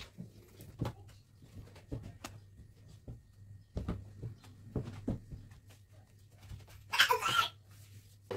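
Scattered light knocks and taps from handling a plastic bottle, a spatula and a bowl of whipped cream on a table while layering a sponge cake. About seven seconds in comes a brief, louder sound of unclear source.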